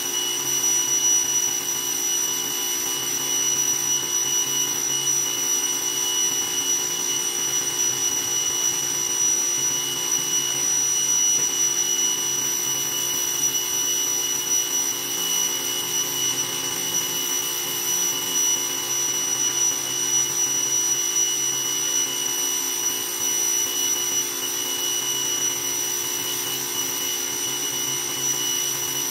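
Greenworks pressure washer running steadily as it sprays: a constant motor-and-pump whine with several high, unchanging tones over the hiss of the water jet.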